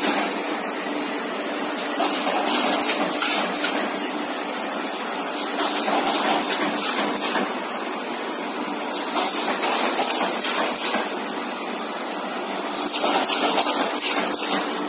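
Automatic cardboard partition assembling machine running: a steady mechanical clatter over a low hum, with stretches of high hissing that come and go every couple of seconds.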